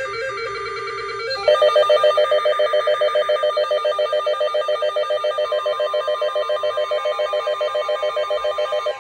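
An electronic emergency alert alarm goes off suddenly about a second and a half in: a loud, rapid pulsing beep. A steady single tone joins it about halfway through. It signals an incoming severe thunderstorm warning.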